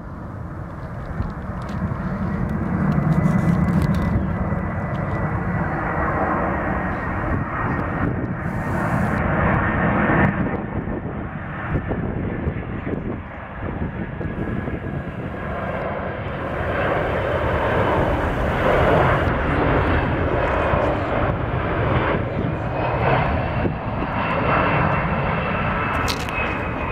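Boeing 767's twin jet engines on landing approach: a steady jet roar with a faint high whine that slowly drifts in pitch as the airliner passes.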